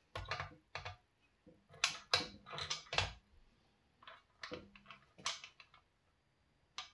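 Irregular metal clicks and short clattering knocks as a spoked dirt bike wheel is fitted onto a Tusk truing stand, its axle shaft being worked through the hub and set into the stand's uprights.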